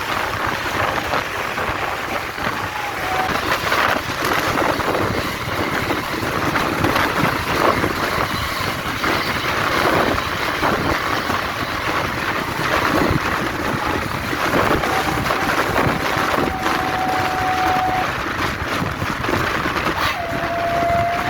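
Road traffic noise with wind buffeting the microphone from a moving vehicle. A steady high horn tone sounds briefly about three seconds in, again for about three seconds past the middle, and louder near the end, rising slightly.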